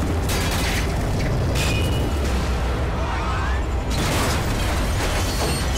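Film sound effects of a burning military helicopter going down and crashing: a heavy, steady rumble broken by crashes and explosions about a quarter second in, at about a second and a half, and again near four seconds.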